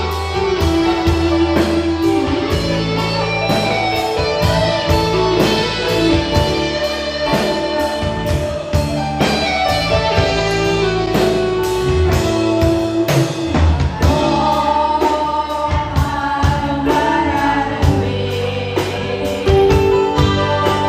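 Live band music with a singer: a solid-body electric guitar plays over a steady beat.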